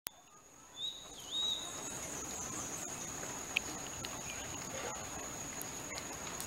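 A steady high-pitched insect trill over rural outdoor background noise, with a bird giving a short wavering whistle about a second in.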